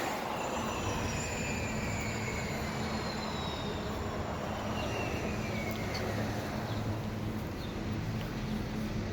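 Steady city street traffic noise with a low steady hum, and a high whine that slowly falls in pitch over several seconds as a vehicle passes.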